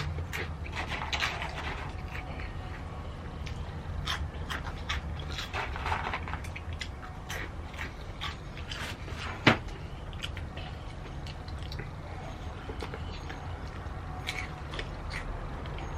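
Close-up eating sounds: chewing with scattered short crisp clicks and crunches, and one sharp louder click about nine and a half seconds in.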